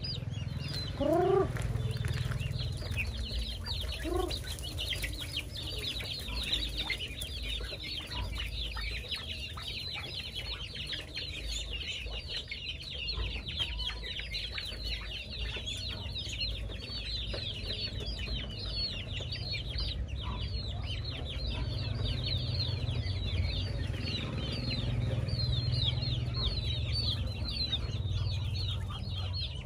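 A flock of chicks and young ducks peeping: a continuous chorus of rapid, high, falling chirps. A larger bird gives two short rising calls about a second and four seconds in, over a steady low rumble.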